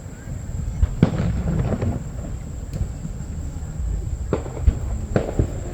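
Aerial fireworks going off: a continuous low rumble of booms, with sharp bangs about a second in and several more from about four seconds in.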